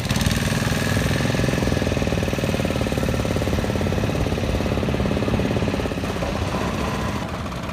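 Same 603 4WD tractor's three-cylinder diesel engine running with a fast, even clatter. It eases off slightly about six seconds in.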